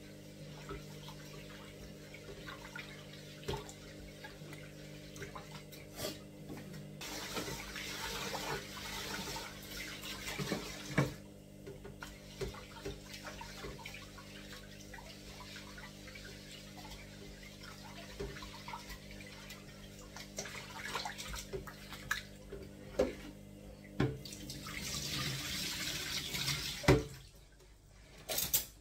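Water running from a tap into a kitchen sink. It is heavier in the first third and again near the end, with a few sharp knocks of dishes or utensils. A steady hum runs underneath.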